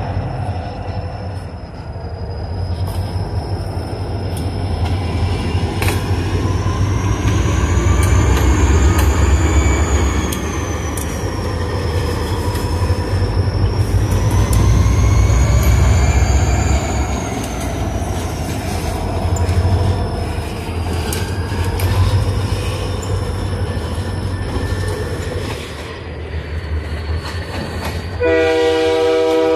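Diesel-electric locomotives of a freight train passing close by with a deep engine rumble, the wheels giving a high squeal that rises and falls in pitch and clacking over the rail joints. A train horn starts sounding near the end.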